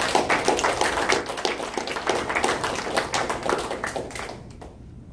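Applause from a small audience: many quick hand claps that die away about four seconds in.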